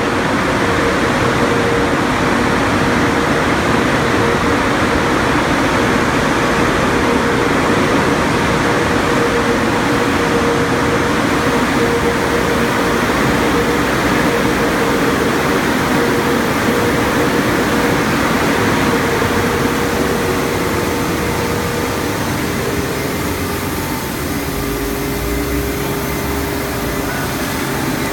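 Tommy Car Wash Systems conveyor tunnel running: a steady rush of spraying water under a constant machinery hum. The hum shifts in pitch about 22 seconds in.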